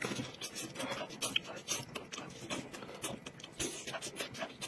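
Eating sounds from a person gnawing meat off a chicken drumstick: wet chewing and lip smacking, with many small irregular clicks and smacks.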